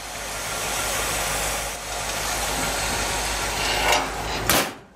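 A steady hissing noise, then one loud thud about four and a half seconds in as the hood of a 1957 Cadillac Series 62 is pushed shut.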